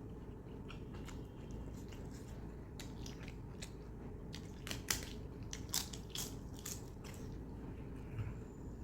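Close-miked eating sounds of a person chewing and biting food, with scattered sharp wet clicks and crunches, the loudest about halfway through, over a steady low hum.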